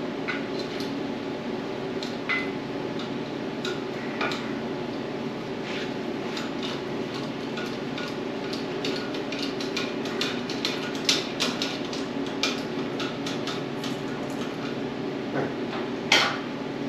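Metal parts clinking, rattling and knocking over a steady machine hum, with a sharper knock near the end, as a vehicle body is raised off its frame.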